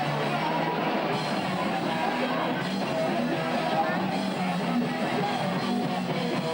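Punk rock band playing live with guitar and drum kit, a dense, steady wall of sound that breaks off abruptly at the end.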